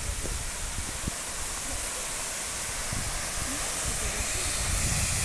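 Waterfall rushing: a steady, even hiss of falling water with a low rumble beneath, growing gradually louder.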